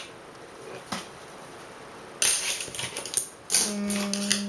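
Clicking and clattering of plastic makeup cases and a blush palette being handled: one click about a second in, then a burst of rattling clicks. Near the end a short, level hummed 'mm' from the woman.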